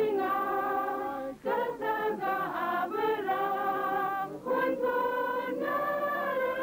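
A women's choir singing a hymn in long held notes, with two brief breaks between phrases.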